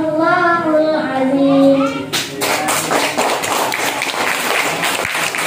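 A girl's drawn-out, melodic voice through a microphone and loudspeaker ends about two seconds in. A roomful of children then breaks into clapping that carries on.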